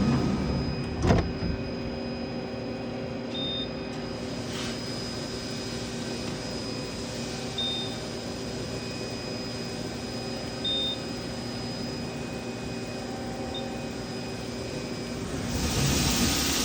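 CNC machine running in a machine shop: a steady hum of several held tones. There is a sharp knock about a second in, a few short high beeps spread every few seconds, and a hissing rush that rises near the end.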